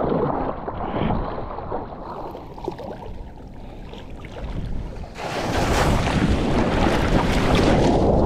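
Ocean water splashing around a surfer paddling for a wave; about five seconds in, a sudden loud rush of moving water and wind on the microphone, as when the wave is caught and ridden.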